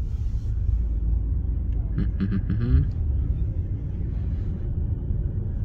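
Low, steady engine and road rumble inside a Mercedes A-Class cabin as the car rolls along, with a brief voice about two seconds in.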